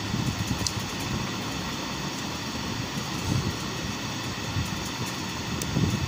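Steady mechanical drone with a rough low rumble, broken by a few faint light clicks.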